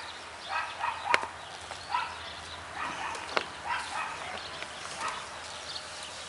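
A dog barking repeatedly, about once or twice a second, with two sharp clicks about one second and three and a half seconds in.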